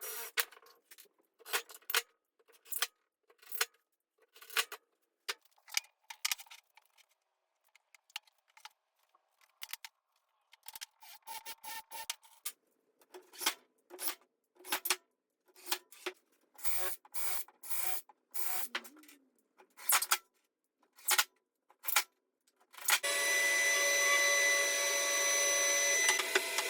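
Woodworking tool noise: a long run of short, separate scraping or driving bursts, each lasting well under a second, then a power tool running steadily for the last few seconds.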